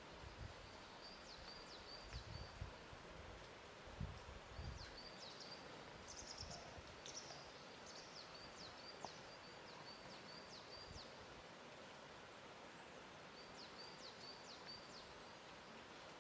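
Quiet lake-shore ambience: a faint steady wash of water, with a few soft low thuds of water lapping in the first five seconds. A small bird chirps in quick high runs on and off throughout.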